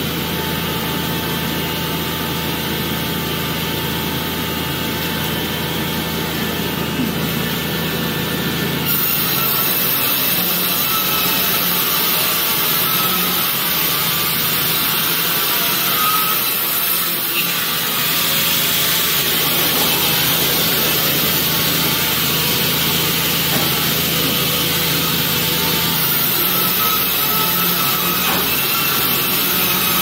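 Wimmer horizontal band sawmill running, its band blade sawing lengthwise through a large log: a steady machine noise with the hiss of the cut.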